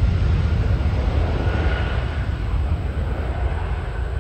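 Jet airliner engines rumbling steadily, with a faint thin whine above the roar.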